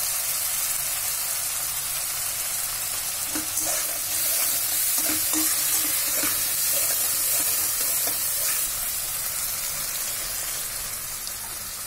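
Onion and tomato masala sizzling steadily in hot oil in a wok, stirred with a spatula that scrapes the pan now and then.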